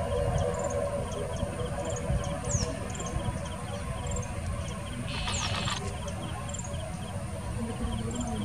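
ATR 72-600's Pratt & Whitney PW127M turboprops and six-blade propellers running with a steady hum over a deep rumble as the aircraft turns on the runway. The hum is a little fainter after the first second. Short chirps from insects repeat throughout, with a few quick falling whistles.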